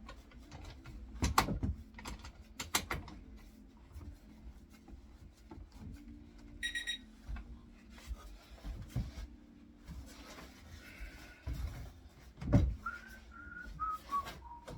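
Clamps being handled and tightened on glued wooden joints: scattered knocks and clicks of the clamps against the wood, with louder knocks about a second and a half in, near three seconds, and again near the end.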